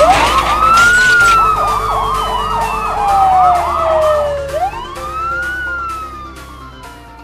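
Emergency vehicle siren switching between a rapid yelp and a slow wail that rises and falls in pitch, fading away near the end.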